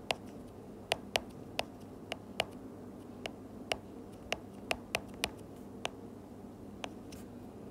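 Stylus tip tapping on a tablet's glass screen during handwriting: about a dozen short, sharp ticks at irregular spacing, over a faint steady room hum.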